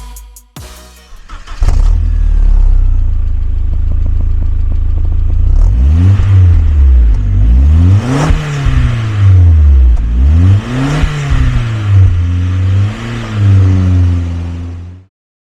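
Audi 1.8-litre turbocharged four-cylinder engine through a Simons aftermarket exhaust. It idles steadily from about a second and a half in, then is revved in a series of short blips, the highest about eight seconds in, each falling back toward idle. It cuts off suddenly near the end.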